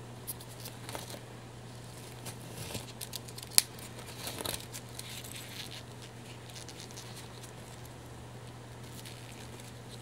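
Small metal rhinestone buckles clicking against each other and rustling in a gloved hand as they are handled, with one sharp click about three and a half seconds in; the handling stops about five seconds in, leaving a steady low hum.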